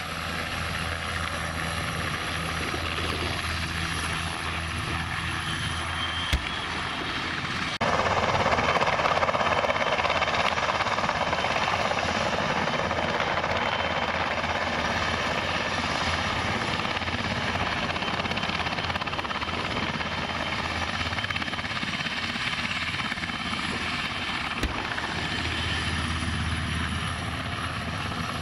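Helicopter rotor and turbine running steadily, with a high whine that falls and then rises again. About eight seconds in a louder rushing noise sets in suddenly and continues.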